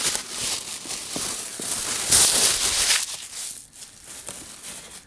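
Tissue paper rustling and crinkling as it is pulled off a cardboard box, loudest around two seconds in and dying away after about three seconds, with a few light taps.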